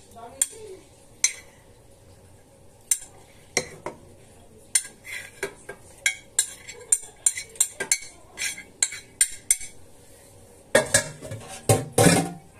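Ceramic baking dish being scraped out, with a string of sharp clinks of a utensil against the dish and a louder clatter near the end.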